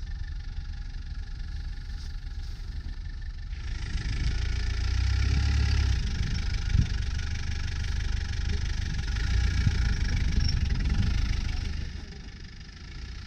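Land Rover Defender engine running under load during a snow recovery on a tow strap. It swells about four seconds in, has a single thump near the middle, and eases off near the end.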